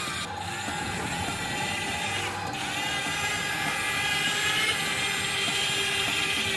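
Whine of a toy RC excavator's small electric motors and gearing running steadily, the pitch shifting slightly as it works.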